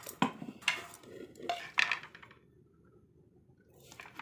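Kitchen utensils and dishes clattering as they are handled, a knife and plates knocking together: several sharp clinks in the first two seconds, a short pause, then a few lighter knocks near the end.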